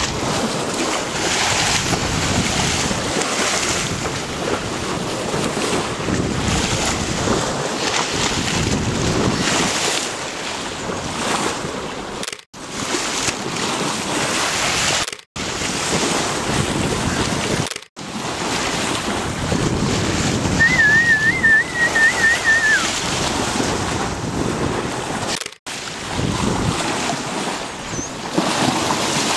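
Wind buffeting the microphone and sea water rushing along a sailboat's hull, broken by a few abrupt cuts. About two-thirds of the way through, a single warbling whistle wavers quickly around one pitch for about two seconds, then drops off.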